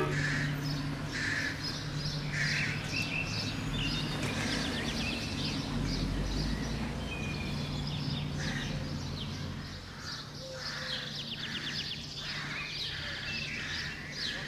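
Birds calling over and over, short harsh calls mixed with chirps, over a low steady background hum.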